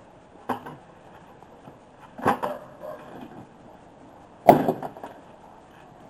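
Three sharp knocks about two seconds apart, the last the loudest.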